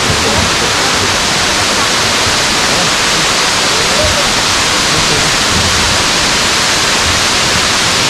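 Güzeldere Waterfall, a fall of about 120 m, pouring down steadily: a loud, even rush of water with no let-up.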